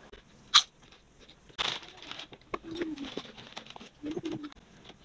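Potato chips being bitten and chewed: a sharp crunch about half a second in and another crunchy burst near two seconds, with smaller crunches and the chip bag rustling around them.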